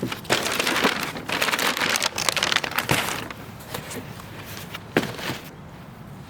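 Crinkling and rustling of packaging being handled, loudest in the first half, with a couple of sharp clicks.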